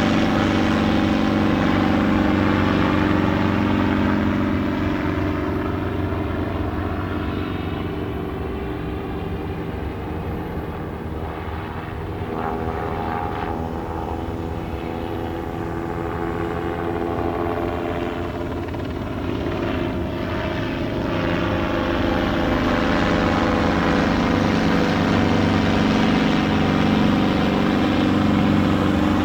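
Two NYPD police helicopters circling overhead, their engine and rotor noise steady throughout. It fades somewhat around the middle as they move off, then swells back louder in the last third.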